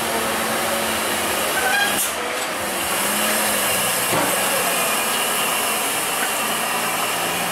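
Diesel engine of a loaded Hino dump truck running under load as the truck crawls up through a tight hairpin bend and passes close by: a steady low drone mixed with road and air noise.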